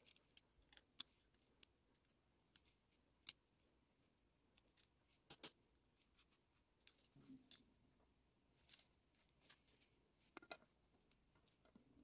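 Near silence broken by faint, irregular small clicks and snips of a diecast toy truck's small plastic chassis parts being worked by gloved hands.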